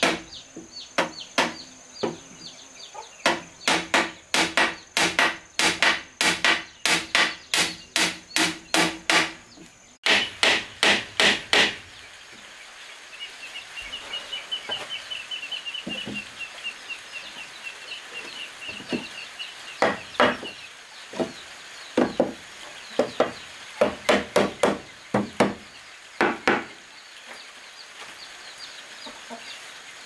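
Hammer driving nails into the boards of a wooden cupboard frame: runs of sharp blows about two a second, thinning out midway, then another run of strikes from about twenty seconds in. A high, even trill sounds in the background during the lull.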